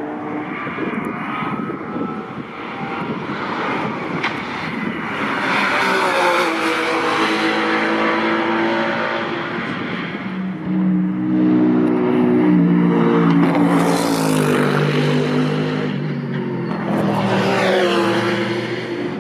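Race cars' engines running hard past on the circuit, one after another, with rising and falling engine pitch. The loudest pass comes about halfway through, its engine note dropping in several steps, and another car swells up near the end.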